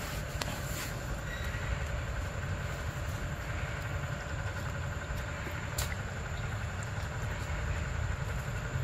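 Steady outdoor background noise: a constant low rumble with thin, unchanging high-pitched tones over it and a few faint clicks.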